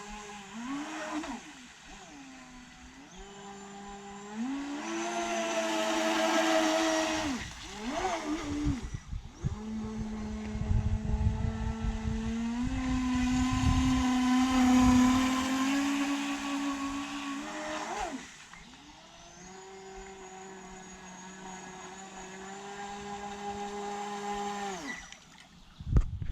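RC boat's motor whining, its pitch rising and falling with the throttle through several runs, then cutting off near the end. A low rushing noise runs underneath during the fastest run in the middle.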